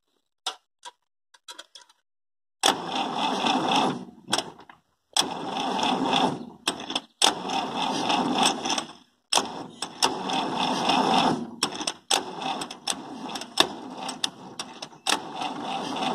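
Massey Ferguson 85 tractor engine being cranked by its starter in repeated bursts of one to three seconds with short breaks, turning over without firing. The starter is fed from a weak battery over poor connections.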